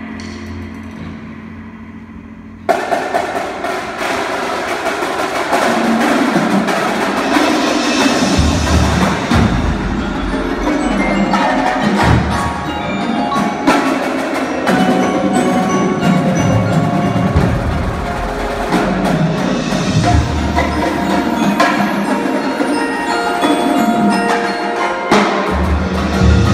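Indoor percussion ensemble playing. A held chord fades for the first couple of seconds, then the whole ensemble comes in with a sudden loud hit about three seconds in. From there marimbas and vibraphones play over a marching drumline of snare drums, tenor drums and bass drums.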